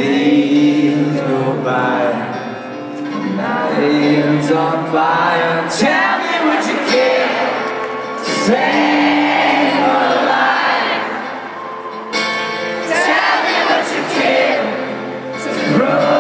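Live rock performance heard from within the audience: a man singing to his own guitar, with many voices in the crowd singing along, echoing in a large arena.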